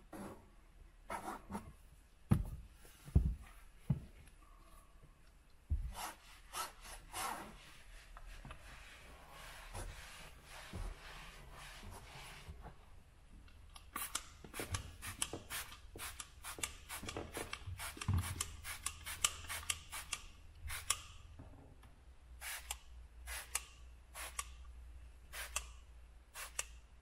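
Trigger spray bottle misting air freshener onto a car's floor carpet: many quick, short hisses in fast runs through the second half. Before that, a cloth rubs and wipes on glass, with a couple of soft knocks.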